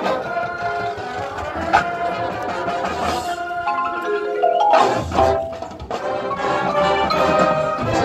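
Marching band playing its field show, led by the front ensemble's mallet percussion (marimba and keyboard instruments) over the winds. A rising run of notes climbs through the middle of the passage and ends in a sudden loud full-band hit about five seconds in.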